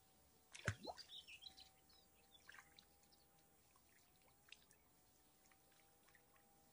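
A single small plop into water about a second in, rising quickly in pitch, followed by a few faint bird chirps. A faint steady hum runs underneath.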